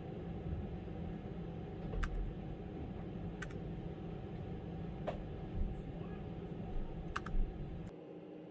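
A few separate key clicks from a Keychron K3 low-profile mechanical keyboard, one every second or two, over a steady low hum.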